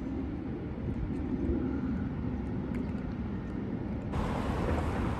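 Steady low rumble of a motor vehicle, with a hum that swells a little around the middle.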